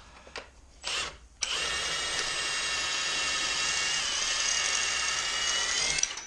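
Cordless Milwaukee impact wrench on a long extension, given a short blip about a second in, then run steadily for about four and a half seconds, spinning out an engine mount bolt.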